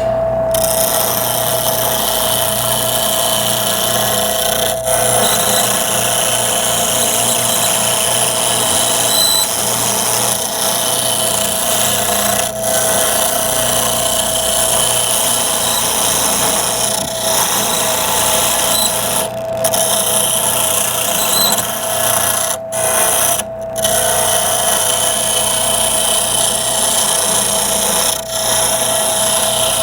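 Wood lathe running with a steady hum while a carbide-tipped turning tool cuts a spinning wenge blank, a continuous scraping hiss of the cut. The cut breaks off briefly several times as the tool lifts from the wood.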